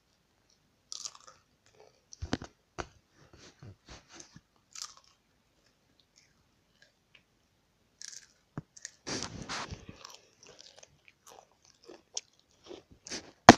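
Someone crunching and chewing Doritos tortilla chips close to the microphone, in irregular crunches with short gaps and a longer run of crunching about nine seconds in.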